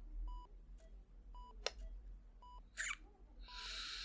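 Hospital heart monitor beeping steadily, one short electronic beep about every second. There is a sharp click in the middle, then a brief swish and a longer soft hiss near the end.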